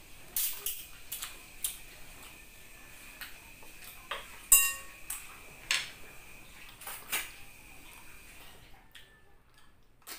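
Short, sharp sucking and smacking clicks as snail meat is sucked out of the shells by mouth, coming every second or so. About four and a half seconds in there is a louder clink with a brief ring, a shell knocking against the ceramic plate.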